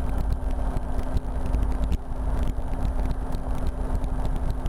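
Steady cabin noise of a RotorWay experimental helicopter in cruise flight: engine and rotor running with a constant low drone, and wind buffeting the microphone.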